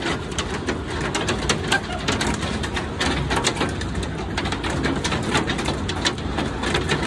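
Hailstones pelting down: a dense, irregular clatter of sharp hits over a steady low rush of falling ice and rain.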